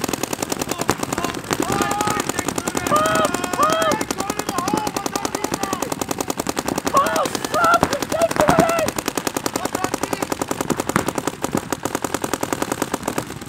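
Paintball markers firing in rapid, continuous streams during a speedball match, a dense rattle of shots throughout. Players shout over the fire at times.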